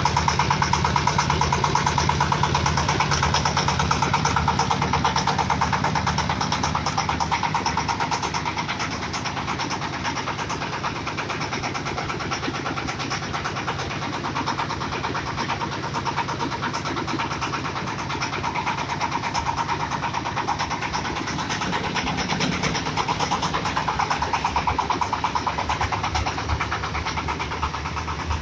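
AMEC ZS-1125 single-cylinder diesel engine of a corn sheller running steadily with a fast, even beat. It gets somewhat quieter for a stretch in the middle, then louder again.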